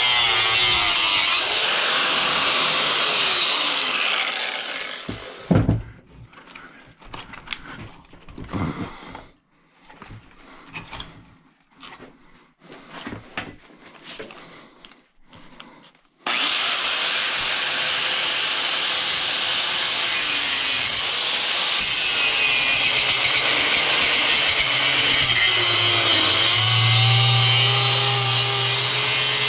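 A power tool cutting, which runs for about five seconds, then stops. About ten seconds of small knocks and handling sounds follow, then the tool starts again and runs steadily to the end.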